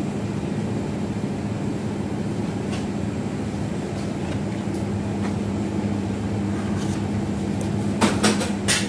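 Steady electrical hum of shop appliances such as refrigerated cases and air conditioning, with a low steady tone. A few sharp clicks come near the end.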